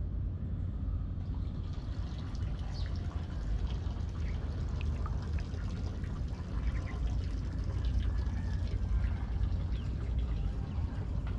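Water pouring and splashing over a steady low rumble, with scattered small clicks.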